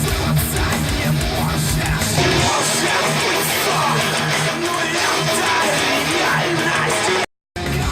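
Guitar-driven music played back through S90E (35AS-012) loudspeakers fitted with Alphard midrange and tweeter drivers, picked up by a microphone in the room. The heavy bass drops away about two and a half seconds in, and the sound cuts out briefly near the end.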